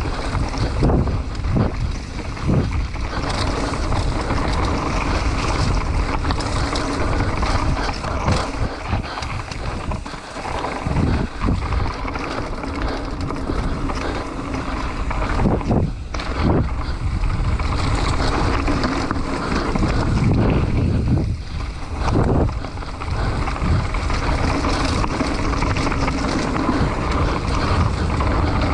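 Mountain bike running down a dirt enduro trail: wind buffeting the microphone and tyres rolling over the ground make a steady rumbling noise, broken by a few sharp knocks as the bike hits bumps.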